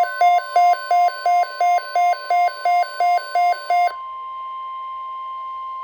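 A weather radio's alert beeping about three times a second, over the steady 1050 Hz NOAA Weather Radio warning alarm tone that announces an alert broadcast. The beeping stops about four seconds in, and the tone continues alone until it cuts off near the end.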